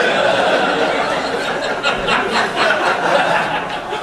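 Comedy-club audience laughing, with scattered clapping joining in from about two seconds in.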